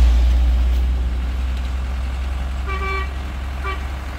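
Engine of a freshly jump-started vehicle running with a deep, steady rumble. A horn toots twice about three seconds in, the second toot shorter.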